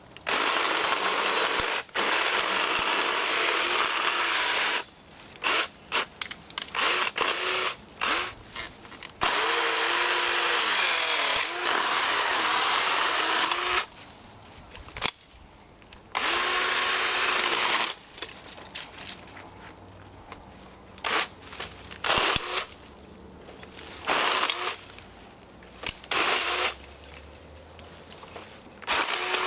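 Battery-powered Black & Decker Alligator lopper chainsaw cutting through dead branches: the chain motor runs in bursts, with several runs of a few seconds in the first half, its pitch dipping during the longer cuts, then a string of short trigger blips in the second half.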